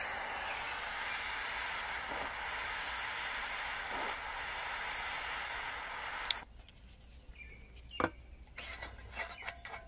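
Triple-jet butane torch lighter burning with a steady hissing jet flame, which cuts off with a click about six seconds in. A few small clicks and taps follow, the loudest about eight seconds in.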